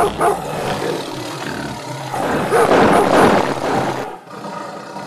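An animal roaring, loudest about three seconds in and fading near the end.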